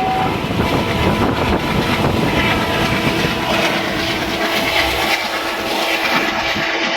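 ALCO WDM3A diesel-electric locomotive's 16-cylinder ALCO 251 engine working hard as the train accelerates, a loud, uneven chugging. A steady whine joins in about halfway through, and the low chugging eases near the end.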